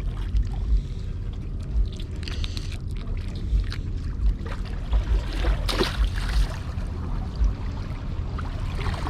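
Wind buffeting the microphone over water washing against the pier, with a louder rush of water a little after halfway.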